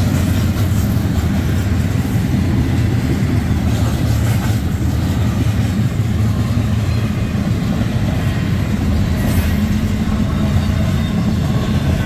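Union Pacific intermodal freight train's cars rolling past a grade crossing: a steady, loud, low rolling noise of steel wheels on rail.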